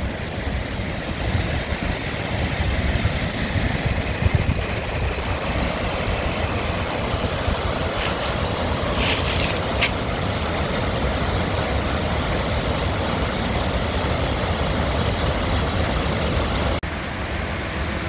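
River rapids rushing over rocks, a steady full hiss of water, with a few brief crackles about eight to ten seconds in.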